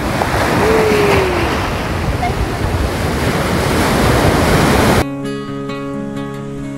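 Surf breaking and washing around the feet, with wind buffeting the microphone. About five seconds in this cuts off suddenly to acoustic guitar music.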